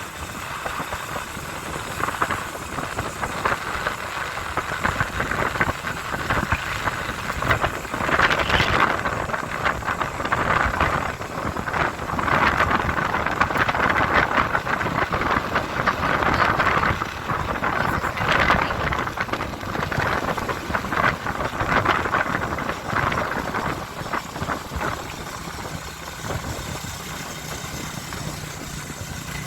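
Motorcycle riding along, its engine running under the steady rush of wind and road noise, getting louder in several surges and easing off near the end.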